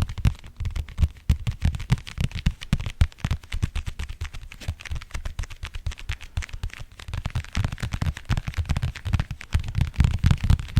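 Rapid ASMR tapping on an object close to the microphone, many taps a second. Each tap has a dull thud and a light click, and the thuds grow heavier in the last few seconds.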